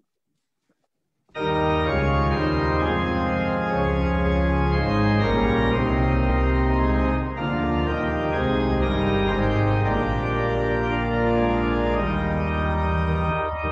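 Organ playing the introduction to a hymn in sustained, slowly changing chords, coming in abruptly about a second in after near silence.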